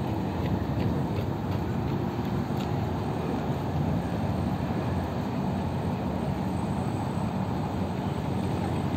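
A steady low engine drone under a constant rushing noise, most likely the speeding motor launch's engines and wash heard across the water.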